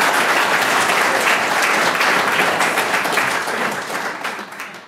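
Audience applauding: many hands clapping together, steady, then dying away near the end.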